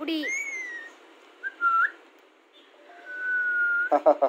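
Rose-ringed parakeet whistling: a note that rises then falls at the start, a short note about a second and a half in, and a long level note from about three seconds in.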